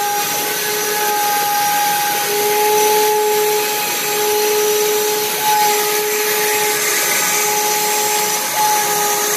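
Bosch router spindle on a CNC machine cutting quarter-inch plywood: a steady high whine over the constant rush of dust-collection airflow.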